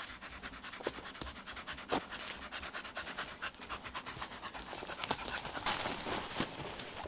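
A dog panting quickly and steadily, in short rhythmic breaths.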